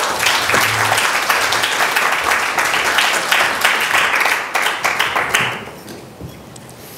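Audience applauding, the clapping dying away about five to six seconds in.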